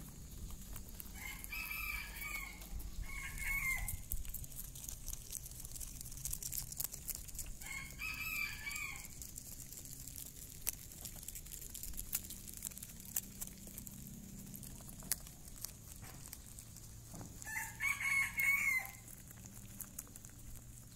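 A rooster crowing in the background several times: about a second in, again around eight seconds, and loudest near the end. Soft rustling and small clicks fill the gaps between the crows.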